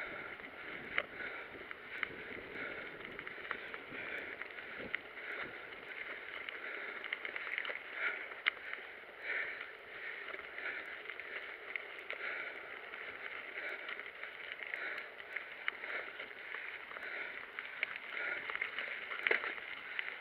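Mountain bike rolling over a dirt and gravel singletrack: a steady rush of tyre noise and rattling, broken by many short clicks and knocks as the bike goes over bumps.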